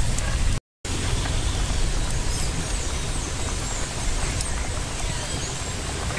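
Steady rushing noise with a strong low rumble, typical of wind on the microphone, with a few faint bird chirps in the middle; the sound cuts out for a moment just under a second in.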